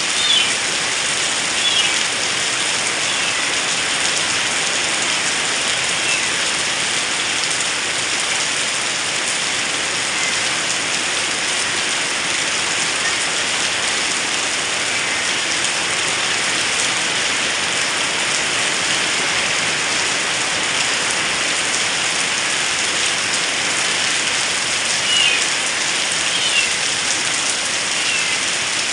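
Heavy rain falling steadily, a constant dense hiss of rain on surfaces. A few brief higher sounds stand out over it near the start and again near the end.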